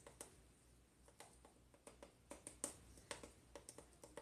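Faint, irregular small clicks and taps of a measuring spoon scooping taco seasoning out of a seasoning jar.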